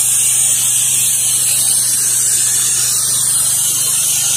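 Pressure washer running steadily: a constant engine and pump hum under a loud hiss of high-pressure water spray on the driveway.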